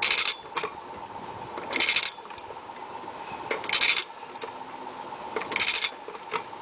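Ratchet of a click-type torque wrench rasping on the return swing, four times about two seconds apart, as the wheel hub nut is cranked tighter toward 150 foot-pounds. The wrench has not yet reached its set torque and clicked.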